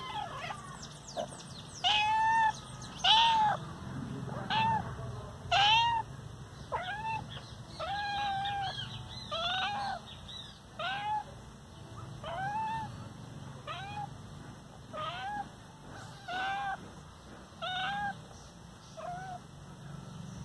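Domestic cat meowing over and over, about one meow a second, each call rising and then falling in pitch.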